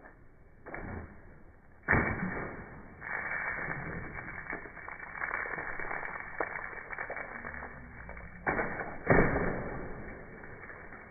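Water balloons bursting as they are smashed onto heads in a close scuffle, with splashing water and shuffling. Two loud sudden hits, about two seconds in and about nine seconds in, each followed by a few seconds of noisy splashing and scuffling.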